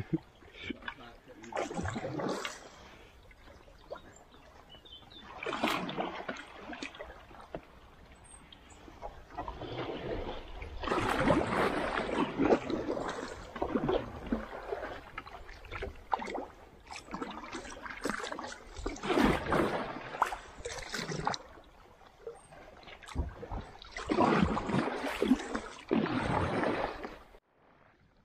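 Kayak paddling on a shallow river: the paddle blades dipping and pulling through the water, with surges of splashing and dripping every few seconds.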